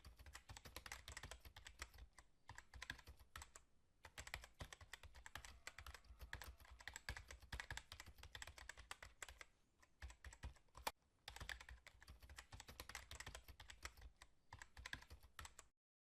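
Quiet, rapid keyboard typing: dense runs of clicks with short pauses about four and ten seconds in, stopping abruptly shortly before the end.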